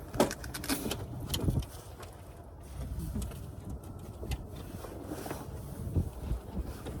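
Camping gear being packed away: several knocks and clatters in the first second and a half, then a steady low rumble.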